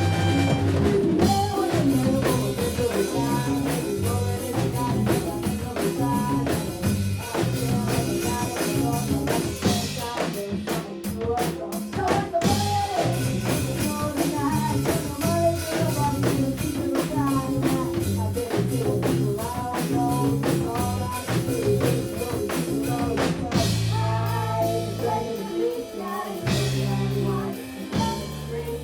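A kids' rock band playing a full-band groove, with a drum kit keeping a steady beat under bass, guitar and other melodic parts. About 24 seconds in the band drops back to bass notes and drums.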